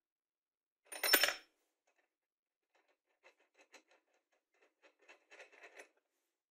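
A steel washer drops down a threaded rod onto plywood with a sharp metallic clink and a brief ring about a second in. Then comes a run of light metallic clicks as a hex nut is spun down the rod's threads by hand.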